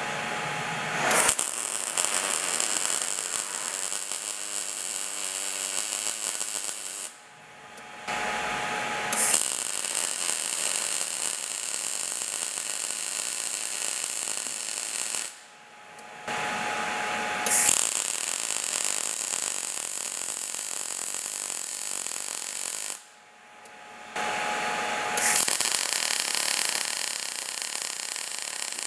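MIG welding arc from a Jasic MIG 160 synergic welder running fillet welds on 2 mm steel: four steady welds of several seconds each, with short pauses between them. Each weld is at a different voltage trim, so the arc's sound changes slightly from one run to the next.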